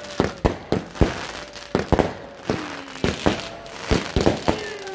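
Fireworks going off overhead: an irregular string of sharp bangs and cracks, several a second.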